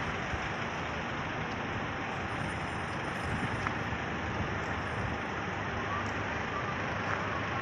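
Ocean surf on the beach, a steady rushing noise with no distinct breaks.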